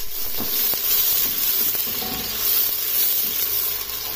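Sliced onions sizzling in hot oil in a steel pressure cooker, stirred with a wooden spatula that makes a few light knocks against the pot.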